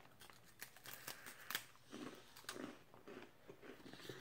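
Faint, irregular crunching and chewing of sandwich crackers being eaten.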